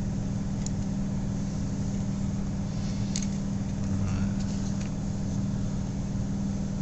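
A steady low hum, with a few faint clicks from a multimeter's plastic case and circuit board being handled.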